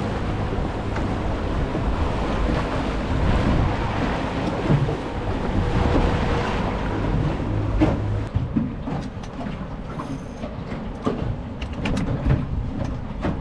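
Wind rumbling and buffeting on the microphone on a small boat, with scattered clicks and knocks from about eight seconds in.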